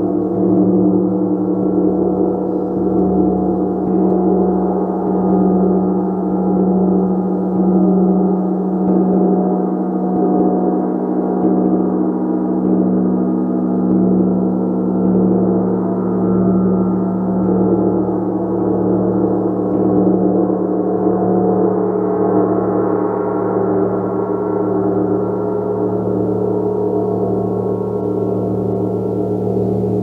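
Gong played continuously in a dense, sustained wash of overlapping ringing tones with a strong deep hum underneath. The loudness swells and eases gently, about every two seconds.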